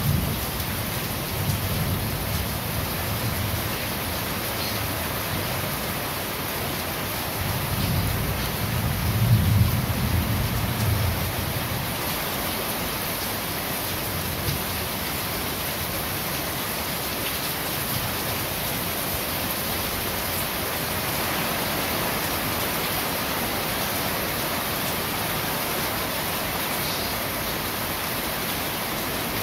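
Steady rain falling on corrugated roof sheets, an even hiss of drops. Two low rumbles under it, the louder one about nine seconds in.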